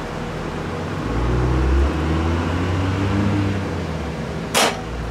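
A low engine rumble that swells for a few seconds with its pitch rising and falling, like a vehicle going by. A single sharp click near the end.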